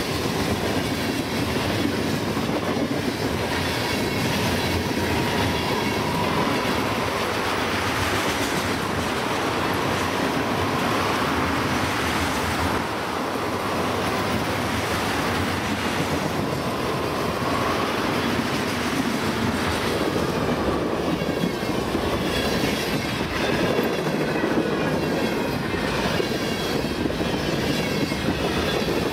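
Freight cars (covered hoppers, tank cars and boxcars) rolling past at speed, steel wheels clacking over the rail joints with a steady rumble. A thin squealing tone from the wheels comes and goes.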